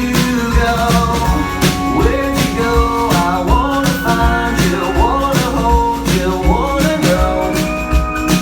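Country-rock song: a singing voice carrying the melody over a drum kit keeping a steady beat and a low bass line.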